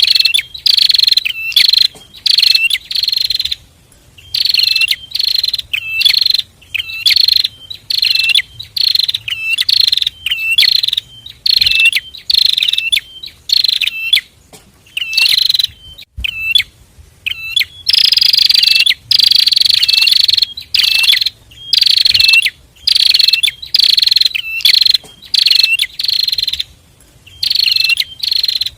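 A pair of prinias (prenjak) calling in a fast run of loud, sharp, high notes, about two a second, broken by a few short pauses.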